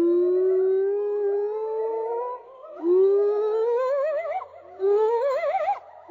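Male white-cheeked gibbon singing: three long hooting notes that each slide upward in pitch. The first is smooth and held for over two seconds; the next two are shorter and rise with a wavering, warbling pitch as the phrase builds.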